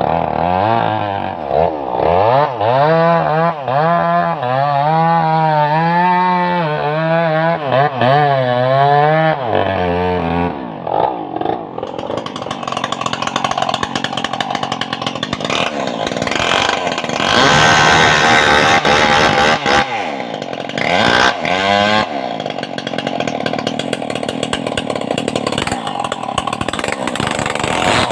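Stihl MS381 two-stroke chainsaw running, its pitch rising and falling over and over for about the first ten seconds. From about twelve seconds in it runs harsher and noisier at speed, the sound of the chain cutting into a teak or mahogany trunk.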